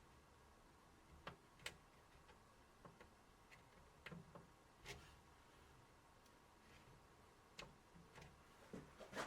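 Faint, irregular clicks and light taps, about a dozen scattered through, a small cluster near the end, over a quiet background.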